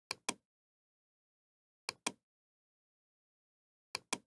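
Computer mouse clicking: three pairs of sharp clicks, each pair a fraction of a second apart, spaced about two seconds from one another.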